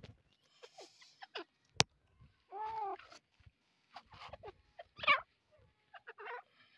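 Grey francolin giving short soft calls and chirps. About two and a half seconds in comes one longer call that rises and falls, just after a sharp click.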